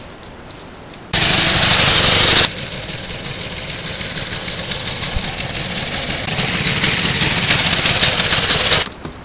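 Small Sears Gamefisher two-stroke outboard motor running on an inflatable dinghy. It comes in suddenly about a second in, loudest for the first second and a half, then runs on a little lower and slowly builds before cutting off just before the end.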